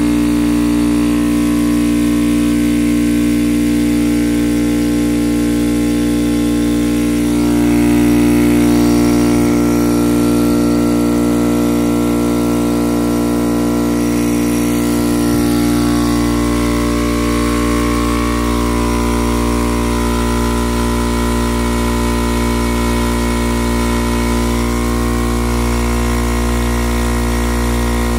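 Craftsman air compressor's electric motor and single-cylinder piston pump running steadily, a loud even humming drone.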